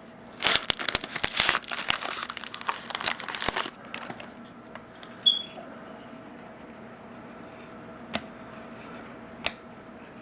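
Foil wrapper of a trading-card pack crinkling and tearing open, a dense crackle for about three seconds, followed by a quieter stretch with a few faint clicks.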